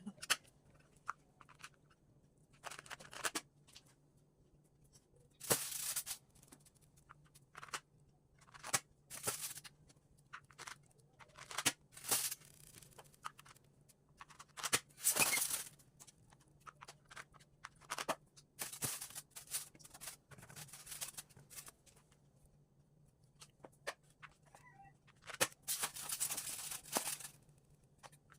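Irregular bursts of rustling and crinkling from material being handled, some short and some a second or more long, over a faint low steady hum.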